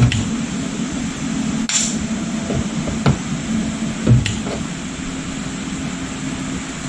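Scattered knocks and taps of bodywork tools on sheet metal over a steady hum, with a short sharp hiss about two seconds in.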